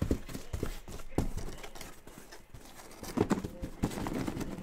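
Cardboard trading-card case being handled and tipped, with the sealed hobby boxes inside shifting, knocking against the cardboard and being set down: a series of irregular hollow knocks and scrapes.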